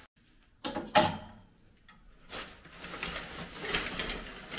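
Clothes hangers clacking as they are handled in a plastic bin bag: two sharp clacks about a second in, the second the loudest, then a longer stretch of rustling and knocking.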